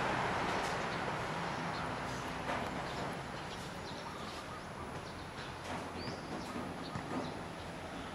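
Steady outdoor background noise with a few faint short chirps, one about six seconds in.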